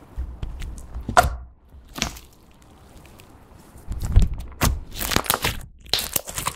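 Pink glitter slime being squished, folded and stretched by hand, with sticky pops and crackles. There are sharp pops about a second and two seconds in, a quieter moment, then a busy run of pops and squelches through the last couple of seconds.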